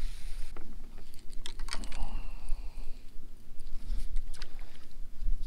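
Baitcasting reel and rod being handled: scattered sharp clicks and ticks, bunched about a second and a half in, over a low wind rumble on the microphone.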